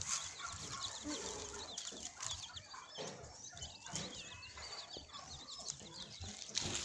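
Deshi hen's chicks peeping over and over in short, high chirps, with the hen clucking low among them now and then.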